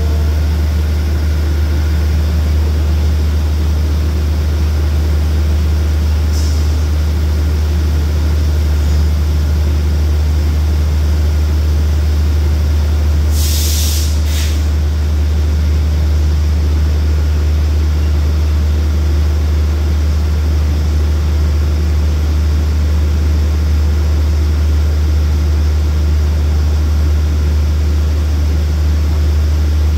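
Steady low drone of the stopped express train's diesel engine running at idle, with a brief hiss of air released about halfway through.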